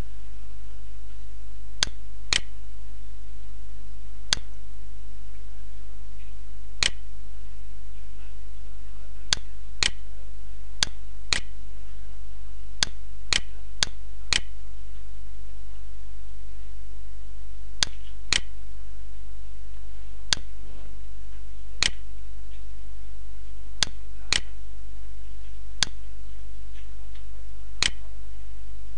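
Computer mouse button clicks, sharp and separate, coming singly and in quick pairs at irregular intervals, over a steady low electrical hum.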